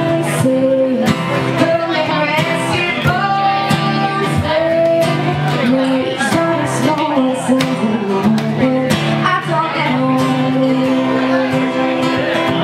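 A woman singing, accompanying herself on a strummed acoustic guitar, amplified through a microphone and PA speaker.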